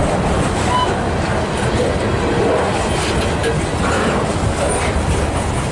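Freight train cars rolling past close by: a steady, loud rumble of steel wheels on the rails, with a few brief faint squeaks.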